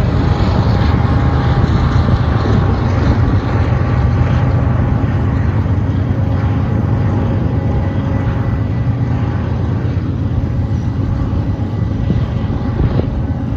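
Long double-stack freight train passing: the diesel locomotives' engines going by, then the steady rumble and rattle of container cars rolling on the rails.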